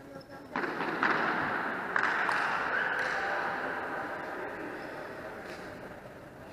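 Several people shouting at once, with louder shouts about one and two seconds in, echoing in a large sports hall and slowly fading.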